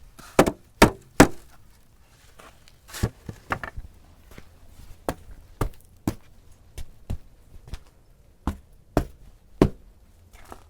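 A snow shovel striking in a series of sharp knocks: three loud ones in quick succession near the start, then about a dozen lighter, irregularly spaced ones.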